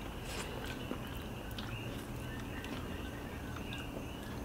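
Faint chewing and small mouth clicks of someone tasting food off a wooden spoon, over a low steady background hum.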